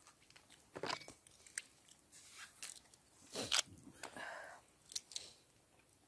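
Crab shell being cracked and picked apart by hand and eaten: a string of irregular sharp cracks and crunches, with chewing.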